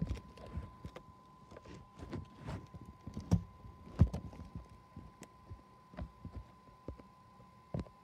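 A series of irregular low thumps and knocks with a few sharp clicks, the loudest about four seconds in, over a faint steady whine.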